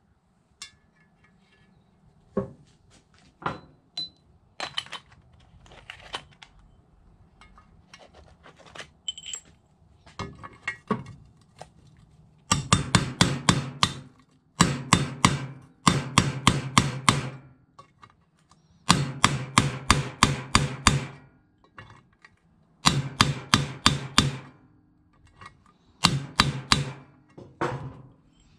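Hammer tapping a metal driver to seat the new water pump bearing into a Yamaha YFZ450R's aluminium side-case cover. Light clicks of handling parts come first, then about halfway in six quick runs of taps, a few seconds apart.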